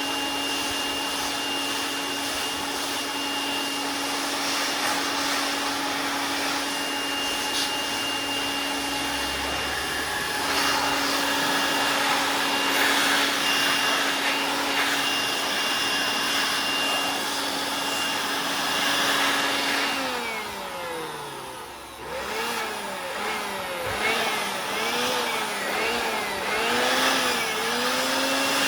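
Small electric blower motor running with a steady whine, then about 20 s in its pitch drops and rises and falls over and over as it is throttled up and down.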